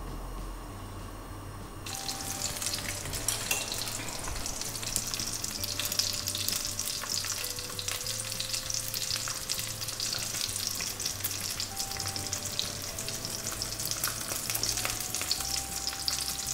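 Small wurstel (frankfurters) frying in hot oil in a wok: a crackling sizzle that starts about two seconds in and keeps going.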